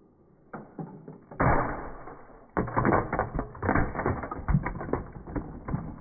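Plastic Lego bricks clattering as a brick-built toy locomotive is struck and breaks apart. A loud rush of noise comes about a second and a half in, then many quick, irregular clicks and knocks of bricks hitting and scattering.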